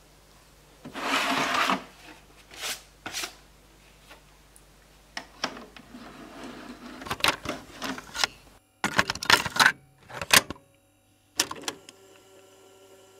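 A VHS cassette is slid into a video cassette recorder with a loud scraping push about a second in, followed by a run of clicks and sharper clunks as the machine takes and loads the tape.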